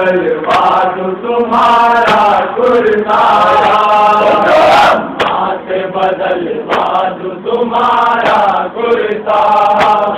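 A man chanting a noha, a Shia lament for Sakina, through a public-address system in long sung phrases. Sharp slaps of chest-beating (matam) recur through it as a beat.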